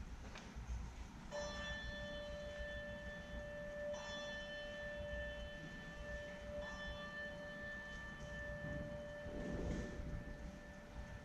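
A bell struck three times, about two and a half seconds apart, one clear note ringing on between the strikes.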